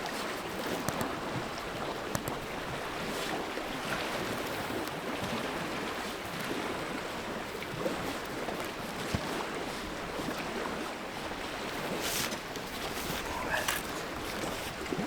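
Steady rush of wind and lake waves washing against the shore, with a few faint knocks among it.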